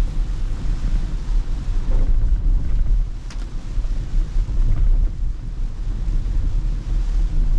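Steady low rumble and hiss inside a Tesla electric car's cabin while it drives through heavy rain: tyres on a flooded road, with spray and rain on the body and the windshield wipers sweeping.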